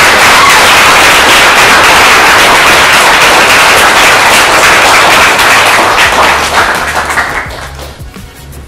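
A roomful of people applauding: dense, loud clapping that trails off over the last couple of seconds.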